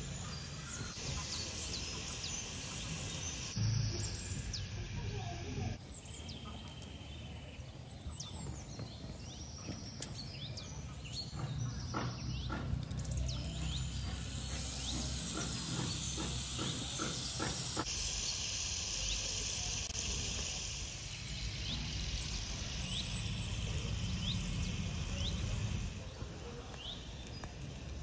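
Batter sizzling as it fries in hot oil in a miniature kadai, a steady high hiss, with small birds chirping now and then and a few light clicks near the middle.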